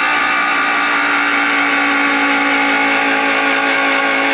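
Starter motor cranking a 1950 Ford flathead V8 with its cylinder heads off: a loud, steady whine at an even pitch with no compression beats, the engine spinning freely while the valves open and close.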